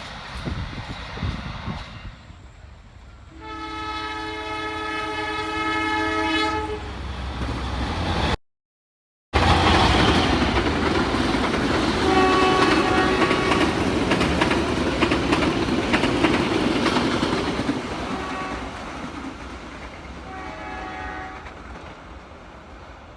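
Train horn of a passing Indonesian train sounding one long chord, then, after a short break, the train passing close by with a loud rumble and wheel clatter. A few shorter horn sounds come over the passing noise before it fades near the end.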